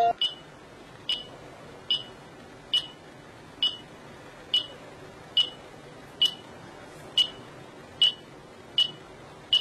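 A short, sharp, high-pitched tick repeating evenly, a little more than once a second, over faint hiss.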